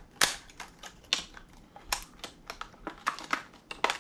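Hard plastic square-bill crankbait being handled: irregular sharp clicks and taps, a few much louder than the rest.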